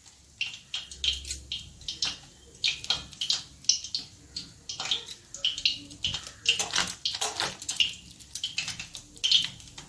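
Thin plastic sheet crinkling and rustling in irregular short crackles under hands as soft dough is pressed and folded around a filling.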